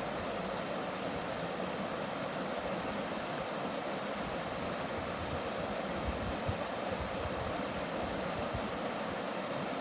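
Mountain valley stream flowing with a steady, even rush of water.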